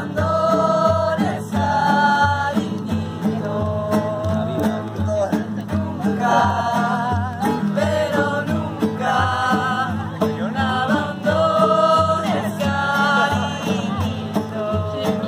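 Music: a song with a singing voice over guitar and a steady bass beat.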